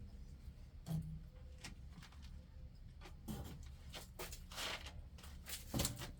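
Scattered clicks, taps and scrapes of hands and tools working on a truck's parts during an oil change, with a sharper knock about a second in and another near the end.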